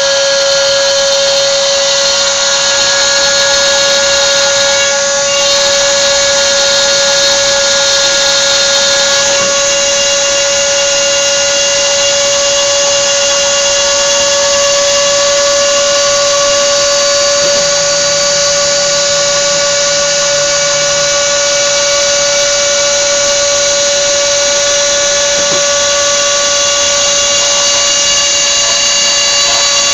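Dremel rotary tool working as the spindle of a homemade CNC machine, running at a steady whine as its bit engraves lines into a clamped sheet.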